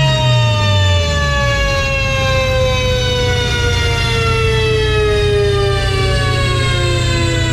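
A BMW B48-engined car on a chassis dyno coasting down after a pull: the engine's revs drop away in the first second or so, then a high whine from the spinning drivetrain and dyno rollers falls slowly and steadily in pitch over a constant low rumble.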